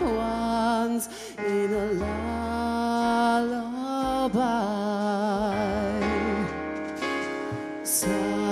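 A man singing into a handheld microphone over a musical accompaniment, holding long notes with vibrato.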